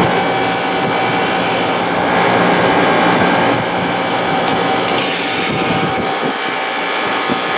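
Walk-in freezer's refrigeration condensing unit (compressor and condenser fans) running just after start-up: a steady hum with a thin whine over it. About five seconds in the sound shifts, which the installer takes for the compressor unloading.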